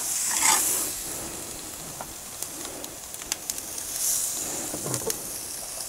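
Red snapper pieces sizzling on a hot charcoal grill grate as they are laid down, the hiss swelling about half a second in and again around four seconds. Light clicks of metal tongs against the grate come through the sizzle.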